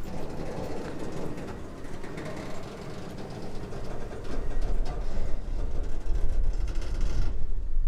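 Freight train shoving back slowly, its autorack cars' wheels rolling and creaking on the rails with scattered clicks. A deep low rumble comes in about four seconds in.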